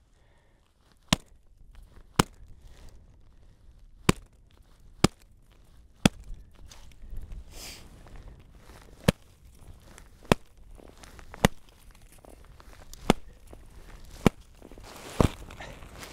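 About a dozen sharp knocks, roughly one a second with a few longer gaps, from an avalanche shovel blade being struck while a snow column is tested for a weak layer in the snowpack. The column does not fracture.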